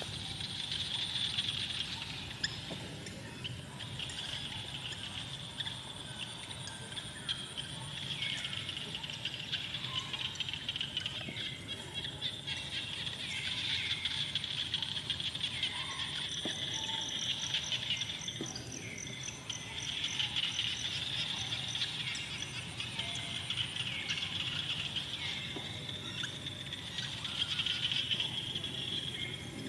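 Forest insects droning in a high, steady buzz that swells and fades every few seconds, with occasional bird chirps.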